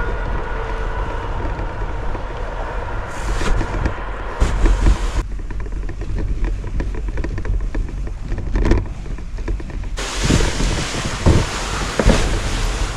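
Plastic sea kayak being dragged over snow, its hull scraping and rumbling along the ground, with a few sharp knocks. The sound changes abruptly twice, about five and ten seconds in.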